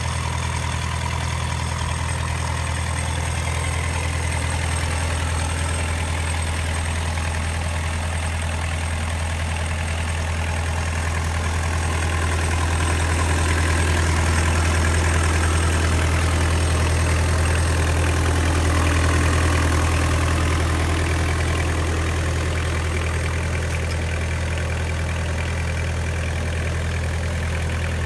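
Kubota diesel engine of a Ransomes 350D gang mower running steadily at idle with a low, even hum, growing somewhat louder for a while midway.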